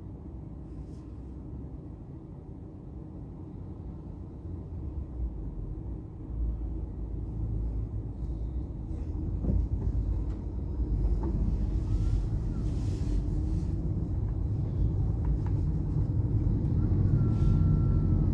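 A car being driven: a steady low rumble of engine and tyres on the road that grows louder from about five seconds in.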